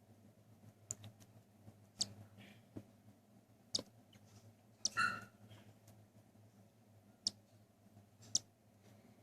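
Faint, sharp clicks, irregular and roughly one a second, while a baby cockatiel is hand-fed from a syringe, with one short chick chirp about five seconds in.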